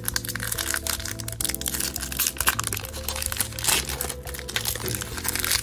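Foil Pokémon booster pack wrapper crinkling in the hands as it is opened, a dense run of quick crackles, over steady background music.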